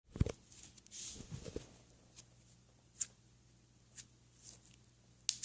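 Light handling noises: a low bump near the start, then several sharp, short clicks or taps spaced about a second apart.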